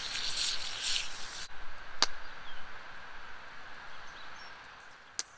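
Food sizzling in a skillet over a campfire, cutting off abruptly about a second and a half in. Then a quiet outdoor background with two sharp clicks.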